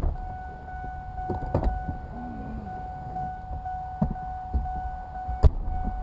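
2002 Ford King Ranch 5.4 2V 4x4 pickup's front end rattling and knocking over rough ground: four sharp knocks spread irregularly over the low rumble of the moving truck, with a steady high whine behind them. The owner suspects a worn ball joint.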